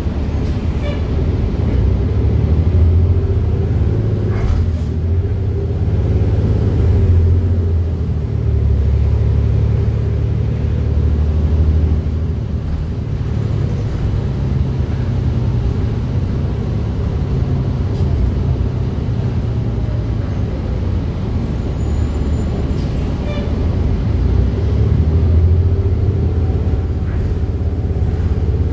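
Interior of a moving city bus: a steady low rumble of engine and road noise with a constant drone, swelling and easing every few seconds as the bus speeds up and slows.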